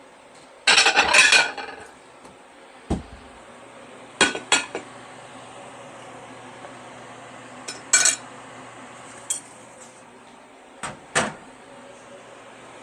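Dishes and cutlery being handled on a kitchen counter: a burst of clattering about a second in, a dull knock, then a handful of separate clinks and taps spread through the rest.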